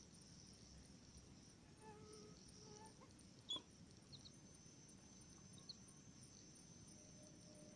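Faint steady high-pitched insect chirring, with a few faint short pitched notes about two seconds in and a brief click near the middle.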